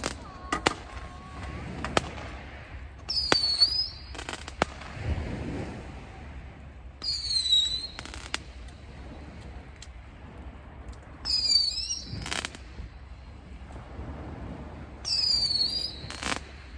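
A bird calling repeatedly: four short, high calls, one about every four seconds, with sharp clicks and knocks in between.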